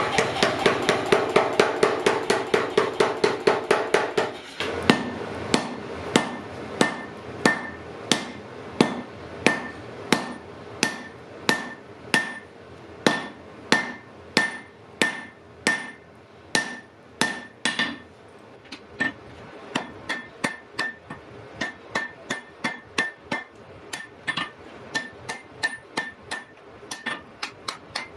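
Blacksmith's hammer striking hot iron on an anvil, forging. Quick blows, about three a second, over a dense ringing for the first few seconds, then slower strokes of about two a second, each with a short high ring, with a brief pause about two-thirds of the way through.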